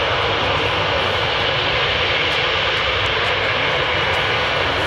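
A Boeing 777-240ER's two jet engines running at taxi power as the airliner rolls toward the listener. It makes a steady, unbroken rushing noise with no change in level.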